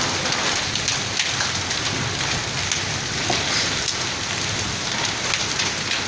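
Heavy rain mixed with hail pelting a concrete courtyard and walls: a steady hiss dotted with many small sharp ticks of hailstones striking.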